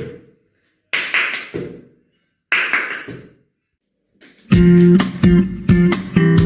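Three short bursts of noise, each fading away over about a second, then strummed guitar music starting about four and a half seconds in.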